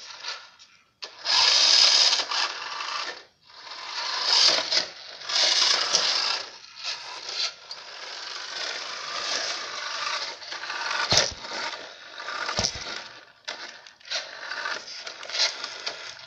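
Toy RC car's small electric motor whirring in spurts as it drives over concrete, with two sharp clicks about a second and a half apart a little past the middle.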